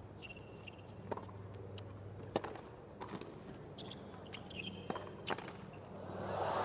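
Tennis rally on a hard court: sharp pops of racket strings striking the ball every second or two, with brief sneaker squeaks on the court surface in between. Near the end the crowd begins to cheer, swelling quickly.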